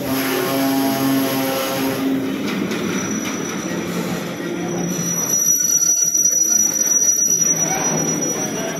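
Freight train of petroleum tank wagons rolling past, with steel wheels squealing on the rails over a steady rumble. A pitched squeal in the first two seconds gives way to a thin, high whine from about five seconds in.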